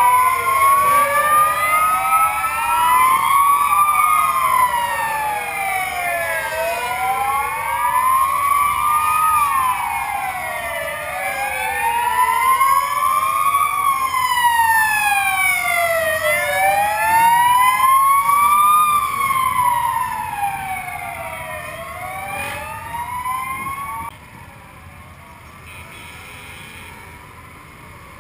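Several fire engine sirens wailing together, each rising and falling in pitch over two to three seconds, out of step with one another. They cut out sharply about 24 seconds in, leaving a much quieter background.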